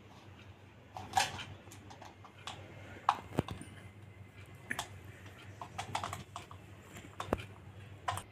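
Irregular light clicks and taps of metal fan parts and pliers being handled while a pin is fitted into a ceiling fan's downrod joint, the loudest about a second in.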